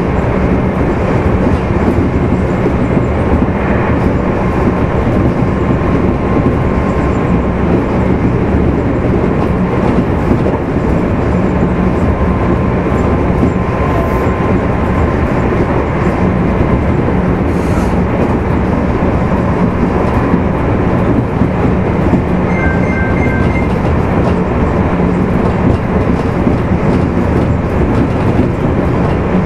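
Running noise inside a Meitetsu 2200 series motor car at speed: a steady rumble of wheels on rail with a constant low traction-motor hum.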